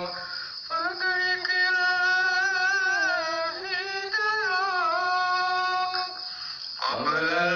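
Sholawat-style devotional Islamic song sung as a duet. The second, higher voice sings a long ornamented phrase alone, with a short gap just after the start and another near the end. The low male voice comes back in about seven seconds in.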